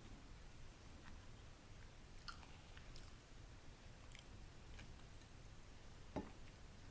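Faint, close-miked chewing of a baked egg wrap: scattered soft wet mouth clicks and small crunches, with a sharper one near the end.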